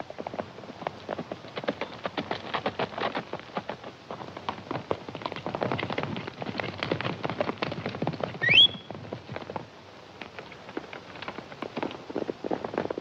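Horses galloping, a dense, continuous clatter of hoofbeats. About eight and a half seconds in, a short, sharp whistle-like whine rises in pitch and stops, the loudest sound.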